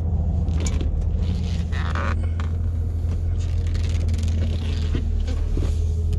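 Vehicle engine running at low speed with a steady low rumble, heard from inside the cabin as it rolls slowly across a parking lot.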